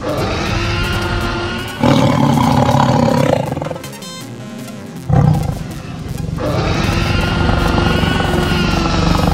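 Big-cat roar sound effects for an animated tiger and spotted cat, over background music. A loud roar comes about two seconds in and lasts over a second, and another sharp, loud one comes about five seconds in.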